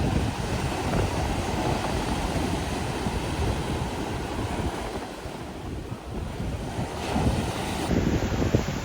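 Wind buffeting the microphone: a rough, irregular low rumble that eases a little about five seconds in and picks up again near the end.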